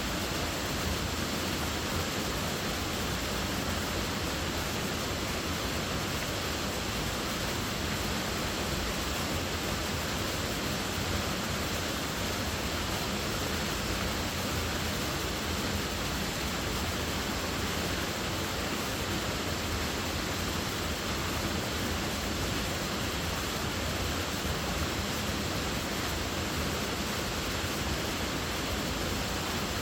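Waterfall: falling water running as a steady, even rushing noise with no breaks.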